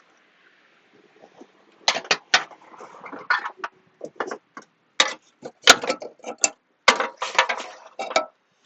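Irregular sharp clicks and clanks of metal parts being handled, starting about two seconds in and coming in quick clusters until near the end.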